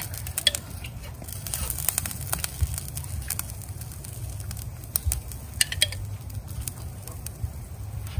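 Marinara sauce sizzling and crackling on the hot Blackstone griddle as it is spooned and spread over flatbread, with scattered small pops over a low steady rumble.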